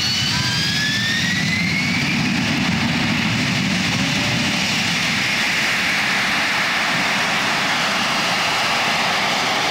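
AV-8B Harrier's Rolls-Royce Pegasus turbofan at takeoff power. Its whine rises in pitch over the first couple of seconds as power comes up, then gives way to loud, steady jet noise as the jet lifts off the runway and climbs away.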